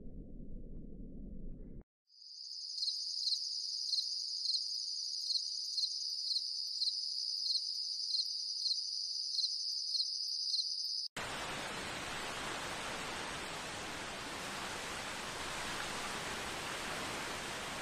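Low wind rumble that cuts off about two seconds in. Then a high, steady insect trill with regular louder pulses, about one and a half a second, which stops abruptly just past the middle. It gives way to the even rush of a waterfall.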